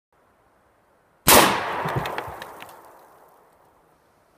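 A single gunshot about a second in, its echo trailing off over about two seconds.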